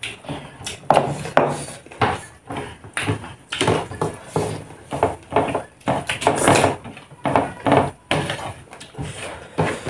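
Close-up eating sounds from people eating rice and chicken by hand: chewing and mouth smacks, with fingers working food on the plates. It comes as an irregular run of short, sharp noises, about one or two a second.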